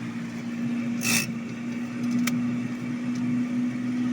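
Refrigerator running with a steady hum after a fresh refrigerant charge. A brief rustle about a second in and a single sharp click a little after two seconds.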